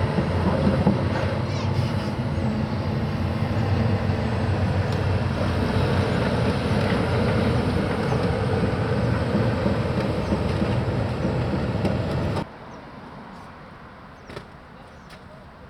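Excavator's diesel engine running hard with hydraulic working noise, a steady loud rumble that cuts off suddenly about twelve seconds in, leaving a much quieter low background.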